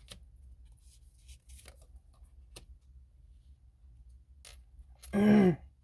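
Faint scattered clicks and rustles of tarot cards being handled, then near the end a short woman's vocal sound, a hum with a falling pitch.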